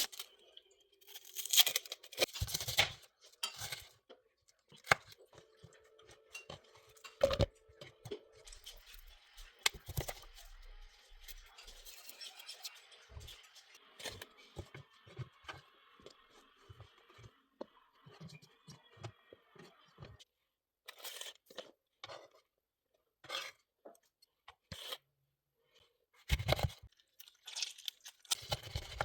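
Hand food-preparation sounds for a homemade cough syrup: irregular tearing and crunching as ingredients are handled, with occasional clinks of jars or utensils.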